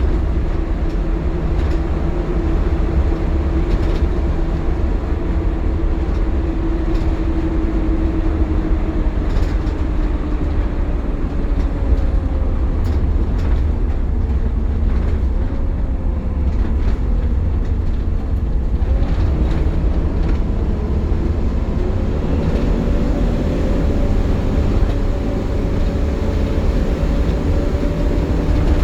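Optare Solo single-deck bus heard from on board while under way: heavy low rumble of the engine and road with a steady whine over it. The whine sinks in pitch around the middle as the bus eases off, then climbs again from about twenty seconds in as it pulls away. This is the vacuum-cleaner-like "hoovering" sound that the bus makes in warm conditions.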